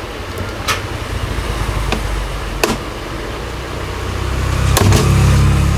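A few sharp clicks, spaced a second or so apart, from the LED TV's panel frame being worked open with tweezers, over a steady low rumble that swells near the end.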